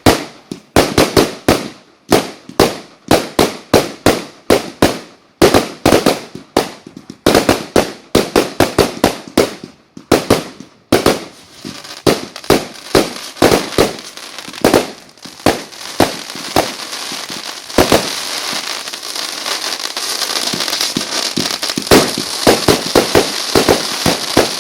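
Fireworks going off: a rapid series of sharp bangs, about two or three a second. From about halfway a dense crackling sets in, with scattered bangs that bunch up again near the end.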